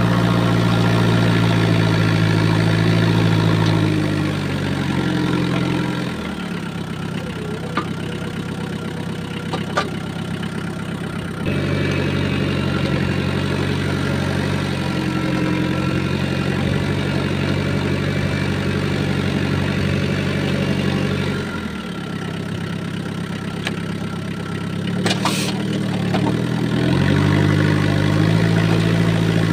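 Tractor engine running while towing a field implement through soil. Its note drops twice, about 4 and 22 seconds in, and picks back up near 12 and 27 seconds. A few sharp clicks are heard along the way.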